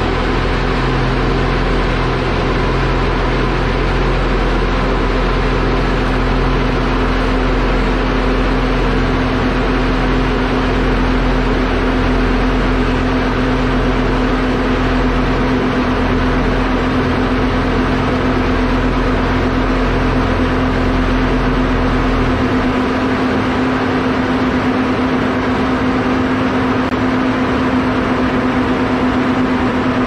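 Roadtec SB-2500 shuttle buggy and asphalt paver running steadily up close, diesel engines and conveyors working, with a constant hum over the engine noise. The deepest rumble drops away about two-thirds of the way through.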